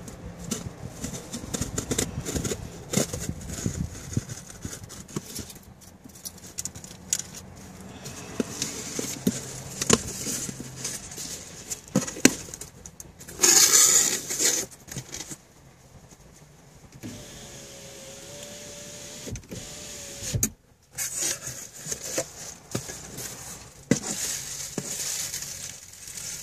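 A car charger's packaging being opened and handled: rustling and crinkling with many small clicks. About halfway through there is a louder noisy rush lasting about a second.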